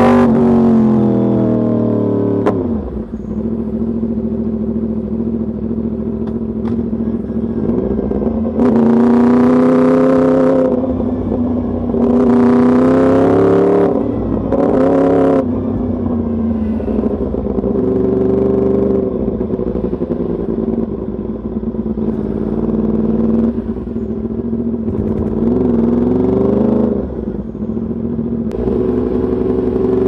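Yamaha YZF-R1's crossplane inline-four through an Arrow Pro race exhaust, ridden at low speed in traffic. Its pitch falls as the throttle closes at the start, then it runs low, with three short bursts of acceleration where the pitch climbs, about a third of the way in and around the middle.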